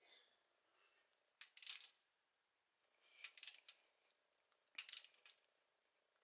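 Faint metallic clicking in three short bursts from a wrench turning the rocker arm adjusting nuts on a small-block Chevy 400 cylinder head. The nuts are being run down to take the slack out and set the valves at zero lash.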